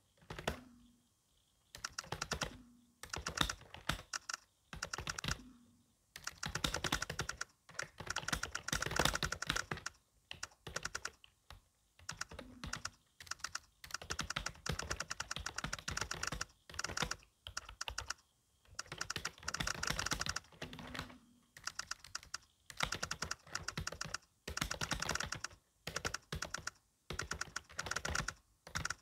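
Fast touch-typing on a wired Dell external keyboard: rapid key clicks in runs of one to three seconds, broken by short pauses.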